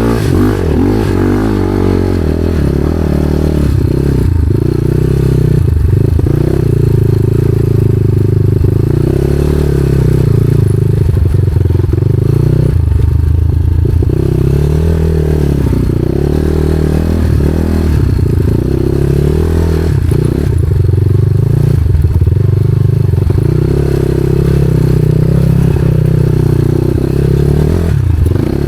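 Motorcycle engine running under load while the bike is ridden off-road, its pitch rising and falling with the throttle, with a few brief knocks along the way.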